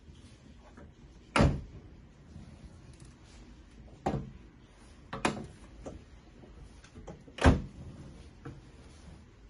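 Stainless-steel bubble waffle maker being worked by hand: the hinged plate assembly is turned in its rotating stand and the plates are shut, giving four metal clunks with a few light clicks between. The last clunk is the loudest.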